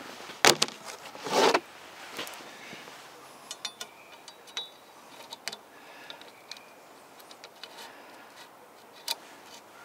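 Steel low-kickback saw chain clinking and rattling as it is handled by hand and fitted around a chainsaw bar: scattered small metallic clicks and ticks, loudest near the start.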